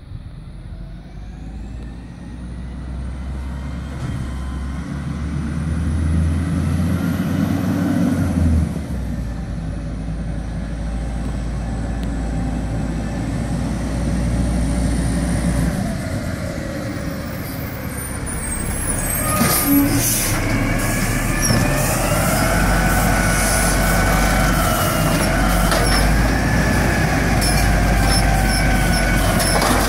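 Peterbilt 320 garbage truck with an Amrep Octo automated side-loader pulling up, its engine growing louder as it approaches, with air brakes. About two-thirds of the way in come clanks as the arm grabs a recycling cart, then a wavering hydraulic whine over the revving engine as the arm lifts the cart to dump it.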